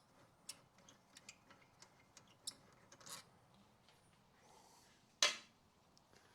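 Small metallic clicks and ticks as the rear brake caliper's bolts are unscrewed by hand, with one louder metal clink about five seconds in.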